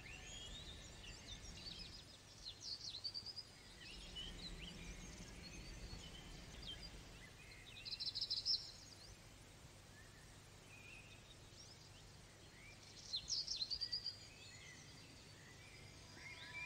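Faint birdsong: scattered chirps, with short rapid trills about three, eight and thirteen seconds in, over a low steady rumble.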